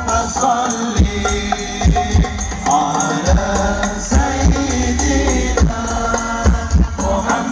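Hadrah sholawat music played loud through a large outdoor sound system with many subwoofers. Chanted singing and tambourines ride over deep, booming frame-drum beats.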